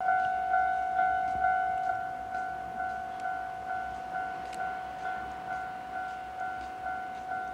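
Japanese railway level-crossing warning bell ringing, an electronic ding repeating about twice a second, each strike fading before the next. It warns that a train is approaching the crossing.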